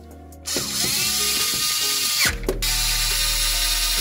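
Cordless power tool whirring as it runs bolts in on the engine's front cover. It starts about half a second in, pauses briefly a little past halfway, then runs again.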